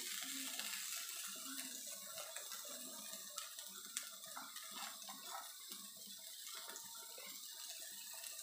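Chickpeas and diced potato frying faintly in oil in a metal karahi: a soft, steady sizzle with small crackles.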